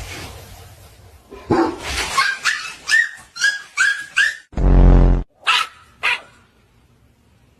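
Chihuahua yapping: a quick run of short, high-pitched barks about a second and a half in, a louder, deeper sound a few seconds later, then two more yaps.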